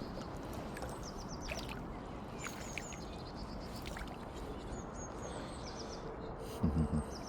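Small birds chirping, several quick high notes in short runs repeated every second or two, over a steady outdoor hiss of wind and water. A brief louder low sound comes near the end.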